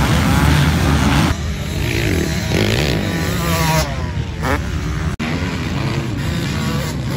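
Several motocross dirt bikes racing on a track, their engines revving up and down in pitch as they ride through jumps and bends. The sound jumps between clips, with a brief dropout about five seconds in.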